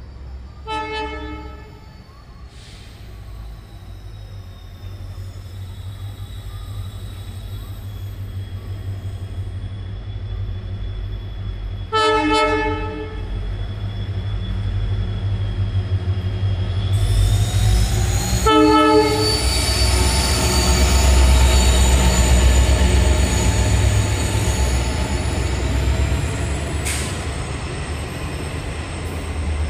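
A WDP4D diesel locomotive hauling a passenger train approaches and passes, its engine rumble growing steadily louder until it is loudest near the end. The horn sounds three short blasts: about a second in, about twelve seconds in and about eighteen seconds in.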